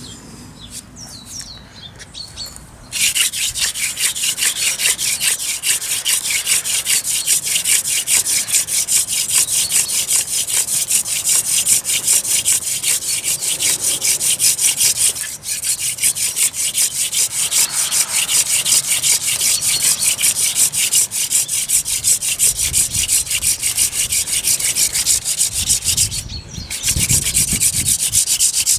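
Wooden hand-drill spindle spun back and forth between the palms in a hearth board, rubbing wood on wood. The rapid, rhythmic scratchy rubbing starts about three seconds in and breaks off briefly twice, once about halfway through and once near the end.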